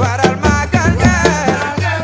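Senegalese Mouride devotional song: a voice singing a wavering, ornamented melody over a steady drum beat and a sustained low bass.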